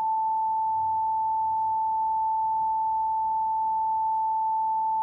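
A pure 880 Hz sine-wave test tone, the note A5, held at one steady pitch and level.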